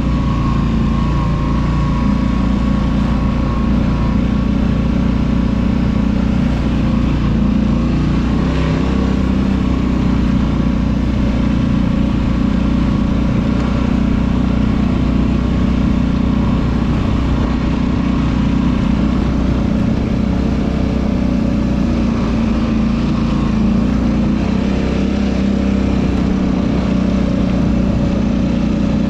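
ATV engine running under way at a fairly steady pitch, its note shifting a little now and then.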